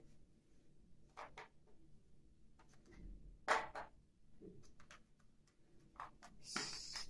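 Plastic toy dishes and play food clicking and knocking as they are picked up and set down: a few separate knocks, the loudest about halfway, and a short scraping rustle near the end.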